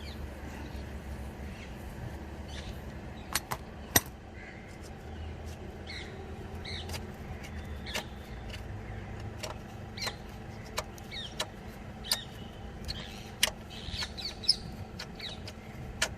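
Scattered sharp metal clicks and clinks of hand tools working on bolts under a car, irregular, the loudest about four seconds in, with faint bird chirps.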